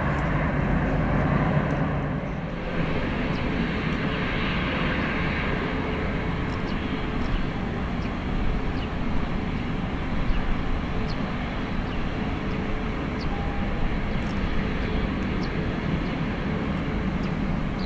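Twin-engine jet airliner taxiing: the engines run at low taxi power with a steady rush and faint whine, dipping briefly about two seconds in.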